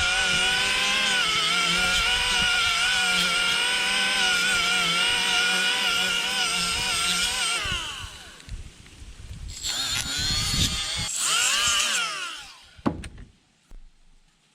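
Die grinder with a flat abrasive wheel running at a steady high whine as it cleans the discoloration out of a brake wheel cylinder bore, then winding down. A second, shorter run a couple of seconds later also winds down, followed by a couple of light knocks.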